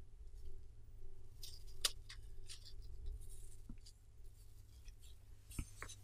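Small metal relics handled with gloved hands and set down on a desk mat: a few faint scattered clicks and taps over a low steady hum.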